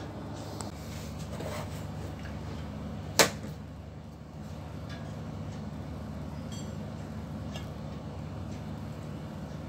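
Steady low hum of shipboard machinery, with one sharp knock a little over three seconds in.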